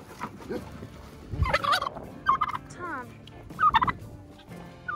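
Domestic tom turkey gobbling four times in quick succession, each gobble a short warbling call.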